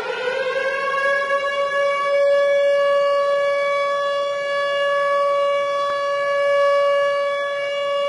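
Tornado warning siren finishing its climb in pitch during the first second, then holding one steady tone, its loudness slowly swelling and easing.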